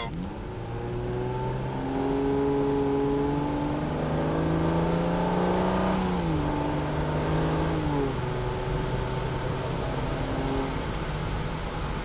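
2005 Aston Martin DB9's V12 engine, heard from inside the cabin, accelerating hard from about 20 to 70 mph: the engine note climbs, drops as the automatic gearbox shifts up about six and again about eight seconds in, then settles to a steady cruise near the end.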